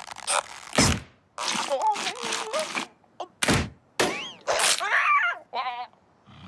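Cartoon sound effects: two sharp hits and a character's wordless vocal sounds, groans and gasps with short cries that slide up and down in pitch, ending in a brief wavering tone.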